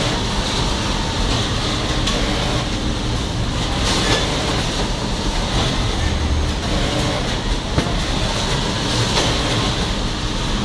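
Steady mechanical din of garment-factory machinery, including an industrial pocket-ironing machine, with a few sharp clicks and knocks.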